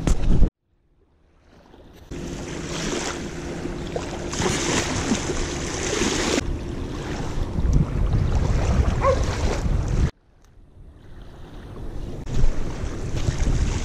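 Wind buffeting the microphone over small waves lapping at a sandy river bank, with a dog barking. The sound cuts out about half a second in and again about ten seconds in, fading back each time.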